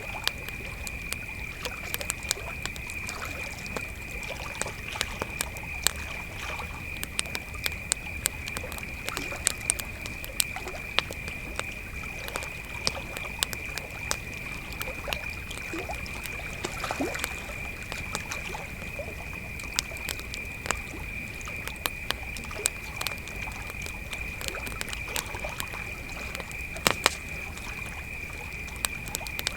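Crickets trilling steadily on one high pitch while a campfire crackles with frequent sharp, irregular pops, two louder ones near the end.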